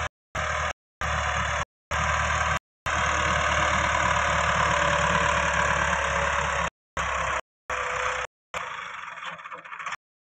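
Massey Ferguson 375 tractor's three-cylinder diesel engine running steadily under load as its front blade pushes soil. The sound cuts abruptly to silence several times.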